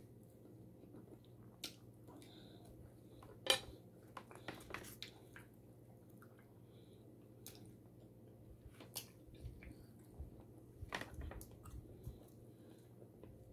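Close-miked chewing and mouth sounds of a person eating, with scattered small clicks and crackles. The sharpest click comes about three and a half seconds in.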